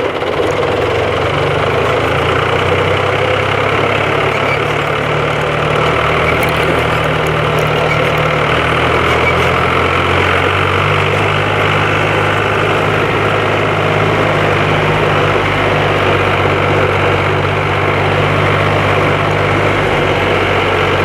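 John Deere 1130 LS tractor's diesel engine running steadily, heard from the driver's seat; its note shifts slightly about ten seconds in.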